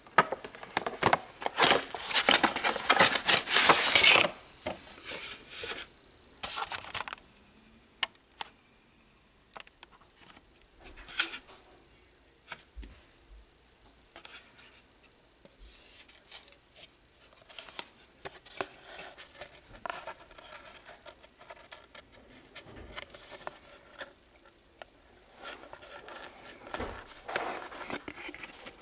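Cardboard box and clear plastic packaging tray being handled and opened: a loud scraping rustle in the first few seconds, then scattered light taps and quiet rubbing, with more cardboard rubbing near the end.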